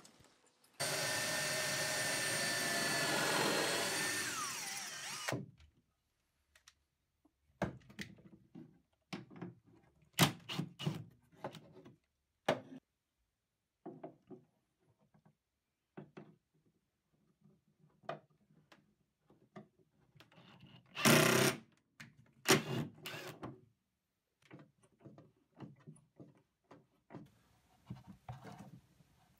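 Power drill running for about four and a half seconds, drilling a screw hole through a wooden shelf support, fading as it winds down near the end. After it come scattered small clicks and knocks of a hand screwdriver driving screws into the wood, with one brief louder burst about twenty-one seconds in.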